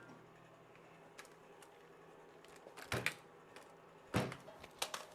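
A few light clicks and taps of hand tools and small metal parts while a cotter pin is worked into a connecting-rod bolt. The clearest come about three seconds in and again a second later, over quiet room tone.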